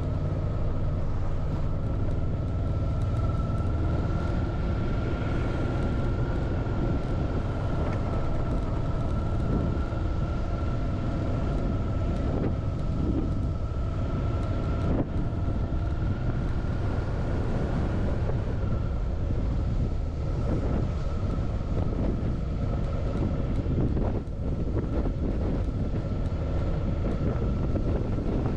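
Suzuki V-Strom 650's V-twin engine running steadily under way, with wind noise on the microphone and a thin steady high tone above the rumble.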